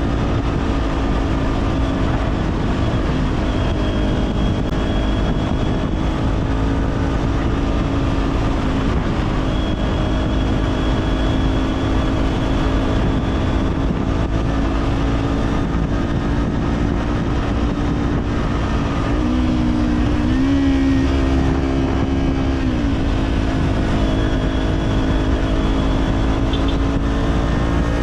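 Kawasaki Z400's parallel-twin engine with an Orion Katya slip-on exhaust, heard from the rider's position while cruising at a steady speed. A little past two-thirds in, the engine note dips briefly, rises for a couple of seconds, then settles back to its steady pitch.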